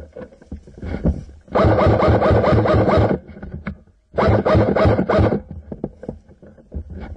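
Ignite Black Ops M4 airsoft electric gun firing two full-auto bursts, each a rapid, even string of shots lasting over a second, heard close up through a camera mounted on the gun. Handling scrapes and knocks come between the bursts.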